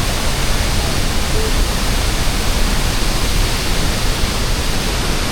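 La Fortuna Waterfall's steady roar of falling water: an even, unbroken rush of noise.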